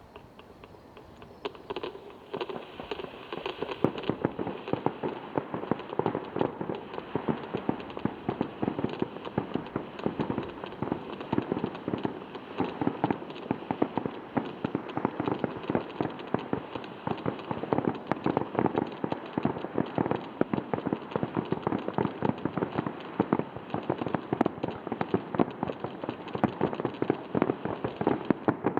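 Aerial fireworks going off in a dense, rapid barrage: many sharp bangs and crackles overlapping, starting about a second in and keeping up without a pause.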